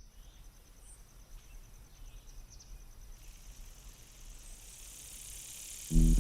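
Faint outdoor ambience: an insect chirring in a steady, rapid pulse over a low rumble, with a high hiss slowly swelling. Loud funk music cuts in just before the end.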